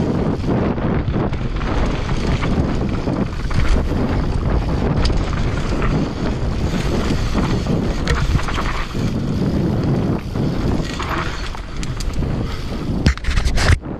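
Commencal downhill mountain bike descending a rough trail: wind rushing over the GoPro's microphone, tyres rolling over dirt and rock, and the frame and chain rattling and knocking over bumps. A cluster of hard knocks comes near the end.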